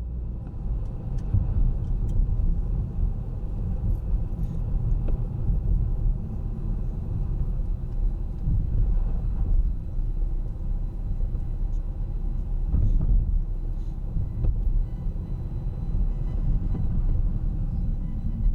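A car driving slowly through city streets: a steady low rumble of engine and tyres on the road, with a few faint clicks.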